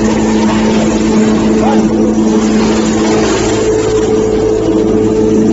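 Wood hammer mill running, a loud steady drone with several held tones and no change in pace.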